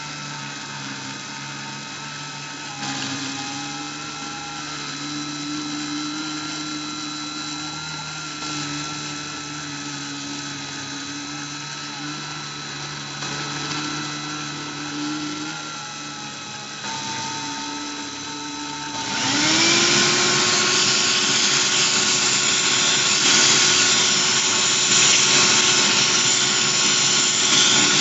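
Dremel rotary tool spinning as the spindle of a Cyclone PCB CNC mill cutting acrylic, with short tones that step up and down in pitch as the machine moves. About two-thirds of the way in, a much louder motor spins up with a quick rising pitch and then runs steadily.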